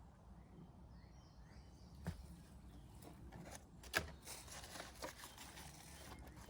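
Scattered sharp clicks and knocks of parts being handled, the loudest about four seconds in, over a low steady rumble, with faint bird chirps early on.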